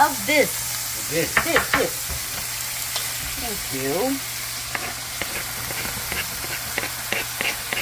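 Diced onion and tomato sizzling as they fry in oil in a hammered metal kadai, stirred with a wooden spatula that scrapes the pan. In the second half comes a run of quick scrapes and taps as the spatula pushes more onion off a plastic cutting board into the pan.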